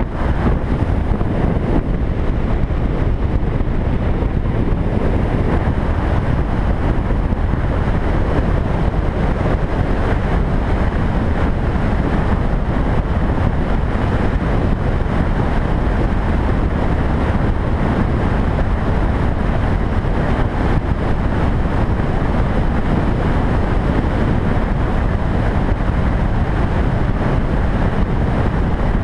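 Steady wind rush over the microphone of a camera riding on a moving motorcycle, mixed with engine and road noise; it cuts in suddenly at the start.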